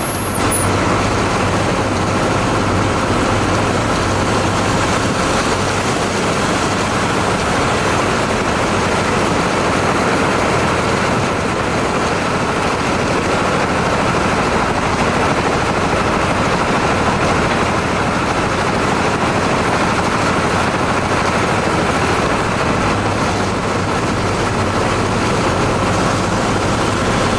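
Hole drilling machine running with a loud, steady, unbroken mechanical noise.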